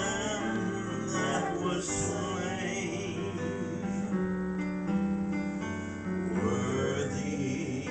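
Voices singing a hymn to a Yamaha Clavinova digital piano accompaniment, with held notes and a steady tune.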